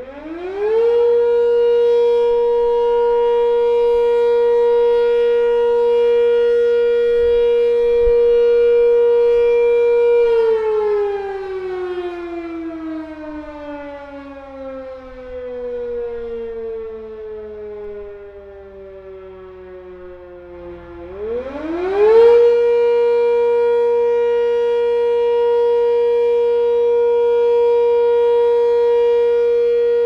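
Sentry 10V eight-port outdoor warning siren sounding: it winds up quickly to a steady high pitch and holds it for about ten seconds, winds slowly down over the next ten seconds, then winds back up and holds again. A semi-trailer truck idles faintly underneath.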